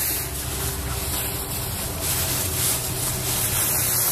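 Steady, even rushing noise of wind buffeting the microphone, with the rustle of a small dog running through a thick layer of dry fallen leaves.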